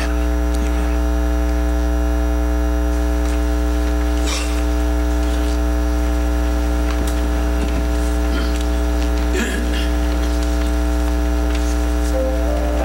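Steady electrical mains hum, a buzz made of many even pitches, running loud through the sound system with a few faint knocks. Near the end soft music notes begin.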